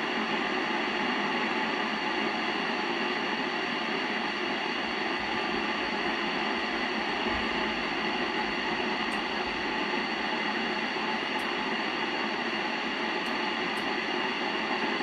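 Steady hiss of static from a Yaesu FT-847 transceiver's speaker while it receives on the ISS 70 cm downlink and no station is coming through.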